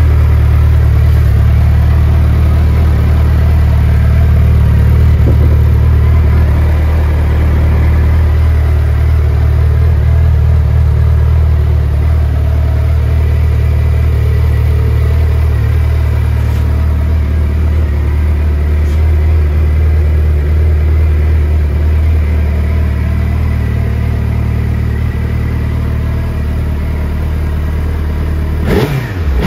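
Suzuki GSX1300R Hayabusa's inline-four idling steadily through a Yoshimura silencer, with a quick throttle blip sending the revs up sharply near the end.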